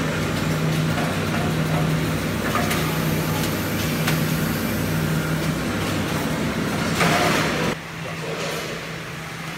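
Automatic pouch packing machine running with a steady hum, with short hisses from its air-driven parts and a longer, louder hiss about seven seconds in. Near the end the noise drops to a quieter hum.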